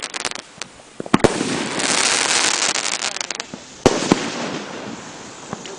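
Fireworks going off: a few sharp bangs, then a spell of dense crackling from about two seconds in, and another sharp bang near four seconds.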